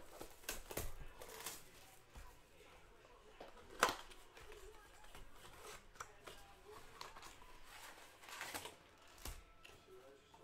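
Cardboard trading-card blaster box being handled and opened by hand: light scraping and rustling of the box, with one sharp snap about four seconds in.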